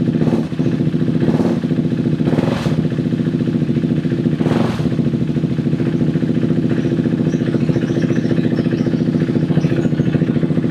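KTM 390 Duke's single-cylinder engine idling steadily. A few short rushing noises cut across it in the first few seconds.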